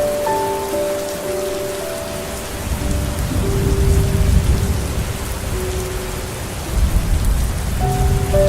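Steady rain falling, with low rolling thunder rumbling from about three seconds in and again near the end. A soft melody of long held notes plays underneath.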